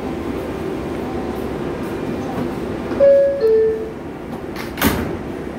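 R142A subway car's two-note door chime, a higher note then a lower one, followed about a second later by a single thud as the doors shut. The train stands humming in the station throughout.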